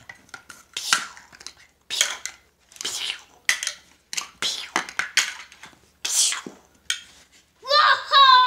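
Chunky plastic toy building blocks clattering and clicking as they are handled and pressed together, in a string of sharp knocks. Near the end a child's voice starts up in a whining cry.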